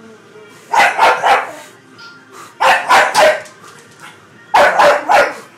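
A pug barking in three quick bursts of three barks each, about two seconds apart.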